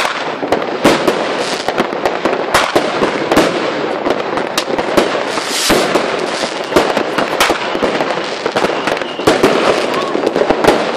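Fireworks and firecrackers going off all around: a continuous barrage of overlapping sharp bangs and crackling, with no let-up.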